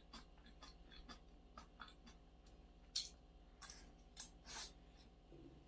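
Faint scrapes and clicks of a metal spoon on a ceramic plate during eating, with a few louder scrapes about three seconds in and again around four seconds.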